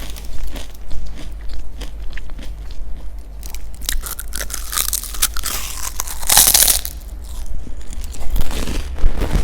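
Close-miked crunchy food being bitten and chewed in crisp, irregular crunches, with one louder burst of crunching a little past the middle, over a steady low hum.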